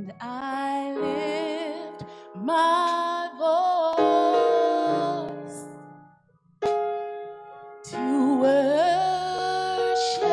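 A woman singing a slow song into a microphone with vibrato in her voice, over held piano and keyboard chords. The singing and chords break off briefly about six seconds in, then start again.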